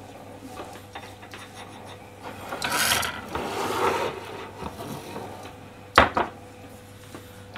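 Tableware being moved about on a stainless-steel counter: a bowl scrapes and rubs across the metal for about two seconds, with small clicks, then one sharp clack near the end.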